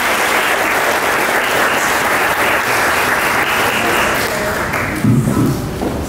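Audience applause that dies away about five seconds in, followed by a few low bumps as a microphone is handled and lifted off its stand.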